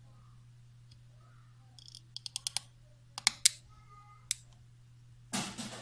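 Small white POM plastic parts of a Hall-effect water flow sensor's housing clicking as they are handled and fitted back together: a quick run of light clicks about two seconds in, two sharp clicks a second later, one more click, then a short rustling scrape near the end.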